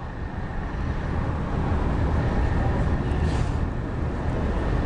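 Low, steady rumbling noise from a live outdoor news-camera microphone, mostly deep with a hiss above. It grows louder about half a second in and then holds.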